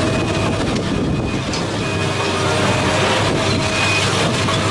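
Heavy demolition machinery running steadily: the diesel engine and hydraulics of a long-reach demolition excavator working on a building, with other site machines behind.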